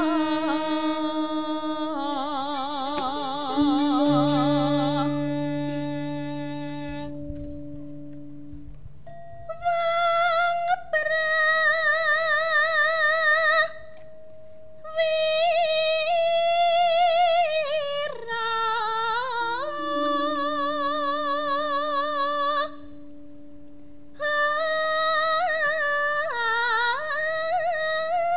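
Javanese gamelan music: struck bronze tones ring and fade at first, then a female singer (sindhen) takes long solo phrases with heavy vibrato, pausing between them, over a few low sustained gamelan tones.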